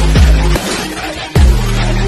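Electronic dance music with heavy bass: two deep bass hits that fall in pitch, the bass dropping out briefly between them.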